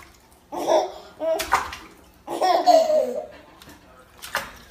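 Baby laughing and squealing in three bursts while splashing in bath water in a kitchen sink, with a splash near the end.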